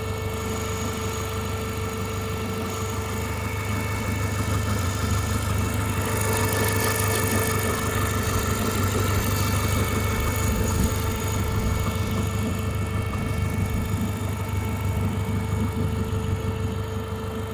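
Renault Megane II's F4RT 2.0 turbo four-cylinder petrol engine running at idle with a steady whine over the engine note: the strange noise that the owner is trying to identify. The sound grows somewhat louder about a third of the way in and eases again near the end.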